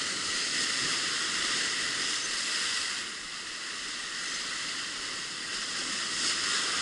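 Sea surf breaking and foaming against shoreline rocks: a steady rushing hiss that eases a little about three seconds in and then builds again.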